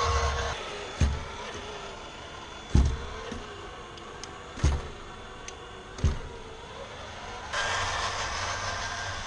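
Electric drive of an RC model Zil 130 truck whining faintly as it crawls with its two-axle trailer, with four sharp thumps as the wheels of the truck and trailer drop off a small wooden ramp. Near the end the drive gets louder as the truck speeds off.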